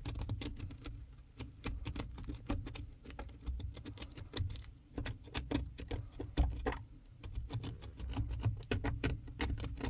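Hand ratchet clicking in quick runs, several clicks a second, as the accelerator pedal's pivot bolts are worked loose.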